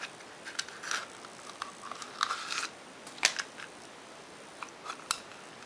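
Hard clear-plastic iPhone case (Speck Shades) being handled and turned over in the hands: scattered light plastic clicks and brief rubbing, with a sharper click about three seconds in and another near the end.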